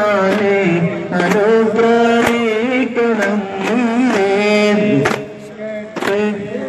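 Devotional singing in long, wavering held notes, with hand-struck daf frame drums beating along. The singing dips briefly about five seconds in.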